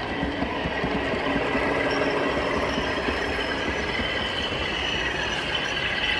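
O gauge model train running along the layout's track: a steady mechanical running noise with thin high whining tones, growing a little louder in the first second or so.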